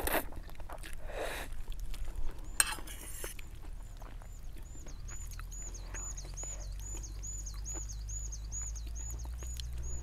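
Noodles slurped into the mouth at the start, followed by soft eating noises. From about halfway through, a high swooping chirp repeats about three times a second to the end.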